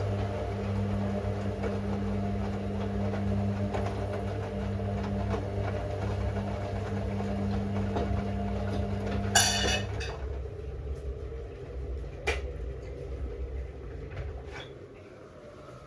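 Hoover Six Sportswear AI130 washing machine running mid-cycle with a steady motor hum. About nine seconds in there is a short hiss, then the motor cuts out and the machine's sound dies away. A single click follows a couple of seconds later.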